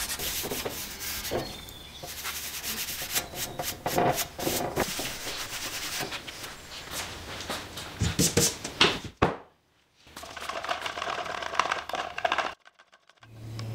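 Hand rubbing and scrubbing on steel during a cold-bluing finish, many short scratchy strokes. It drops out twice to silence and picks up again with a slightly different texture.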